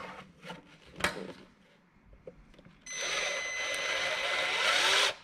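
Ridgid cordless drill boring slowly through the plastic housing of an LED tail light to enlarge its mounting holes. A few light handling clicks, then about three seconds in the drill starts and runs steadily with a high whine.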